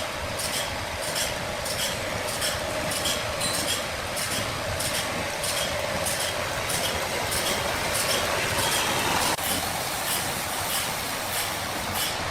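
Sawmill machinery running: a steady mechanical noise with a regular ticking about twice a second over a steady hum. A harsher surge of noise builds about eight seconds in and cuts off sharply a second later.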